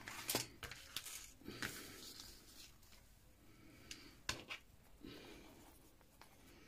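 Faint handling sounds: scattered light clicks and soft rustles as an elastic band is pulled through punched holes in a notebook cover.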